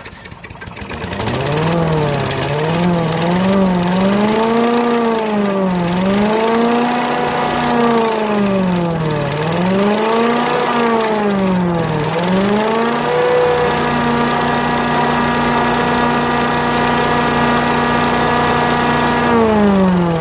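Craftsman chipper vac's 5 hp single-cylinder engine catching about a second in and running with its speed surging up and down every two to three seconds. It then settles to a steady speed and winds down near the end as it is shut off. The owner suspects the surging comes from water in the carburetor bowl starving it of fuel.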